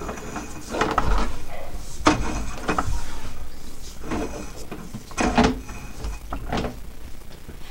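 Sewer inspection camera's push rod being pulled back through a clay sewer line: a series of about six separate knocks and scraping clatters over a low rumble.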